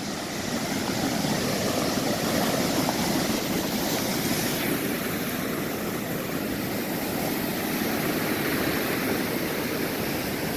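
Steady roar of rough, stormy ocean surf, an even rush with no separate wave crashes standing out.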